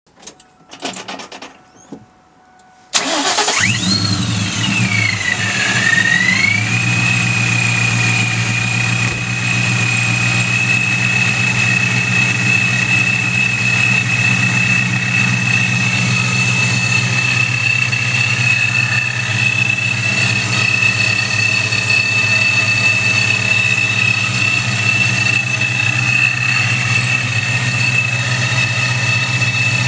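Supercharged 2002 Mustang GT 4.6-litre V8 with a Vortech V1 supercharger, firing up about three seconds in on its first start on a starter tune. The blower's high whine shoots up with the start-up flare, dips, and settles into a steady whine over the idling engine.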